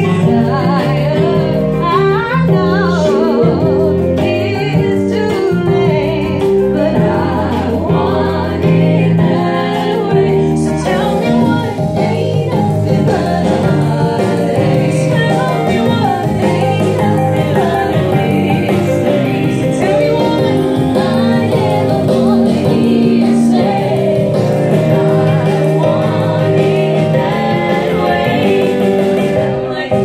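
Female vocal trio singing in close harmony through microphones and a PA speaker, over steady low instrumental notes from a backing track.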